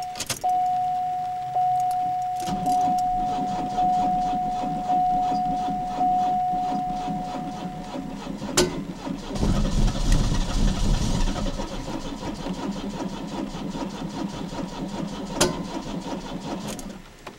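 1994 Pontiac Sunbird being started, the starter cranking the engine in a steady rhythm, louder and deeper from about nine and a half seconds, stopping just before the end. A steady high warning tone sounds over the first eight seconds, and there are a couple of sharp clicks. The car often would not fire on the first start of the day, which the owner puts down to spark plugs, wires, coil pack or injectors.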